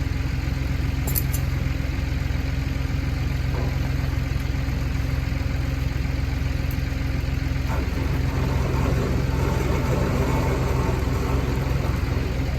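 Engine running steadily at low revs, a machine working while a big log is being winched and pushed onto a trailer. The tone changes slightly about eight seconds in.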